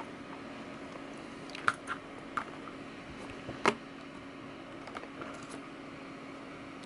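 A few sharp light clicks and taps of a small screwdriver and tiny screws on a laptop's plastic screen assembly, the loudest about three and a half seconds in, over a faint steady hum.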